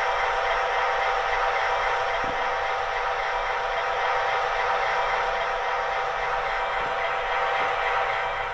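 Diesel locomotive sound from an MTH Proto-Sound decoder, played through the HO-scale model's small speaker: a steady, thin engine hum without bass, with a tone running through it. It grows quieter near the end as the decoder volume is stepped down.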